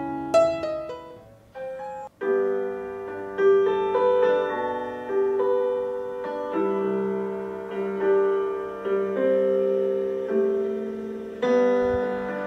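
Slow piano music with sustained chords. A few quick high notes sound just after the start, then there is a brief pause before the piano music picks up again a little after two seconds in.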